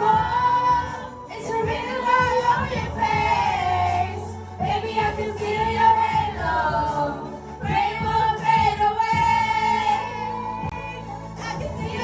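Karaoke singing: a woman's voice sings a melody over a pop backing track, with held notes that glide between pitches.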